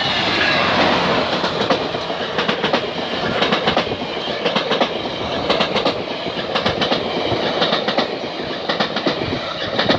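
GO Transit commuter train passing close by: steady rolling noise from its wheels, with rapid, irregular clicks as they cross rail joints.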